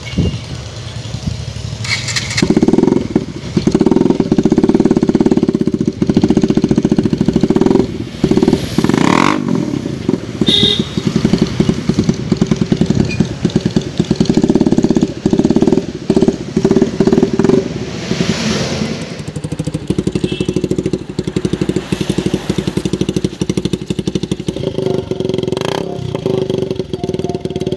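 Bajaj Pulsar 150's single-cylinder engine running loudly through an aftermarket exhaust pipe, revved again and again with throttle blips from about two seconds in.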